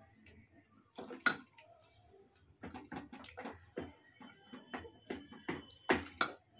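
Wooden spatula scraping and knocking against a metal cooking pot while thick gravy and chicken pieces are scooped out onto a plate: irregular clicks and knocks, the loudest about a second in and about six seconds in.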